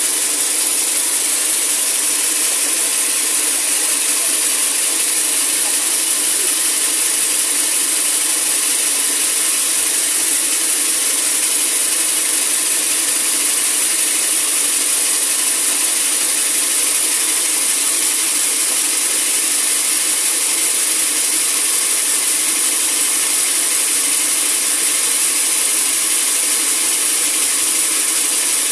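Sawmill saw cutting through a large teak log: a loud, steady, high-pitched noise that runs on without a break.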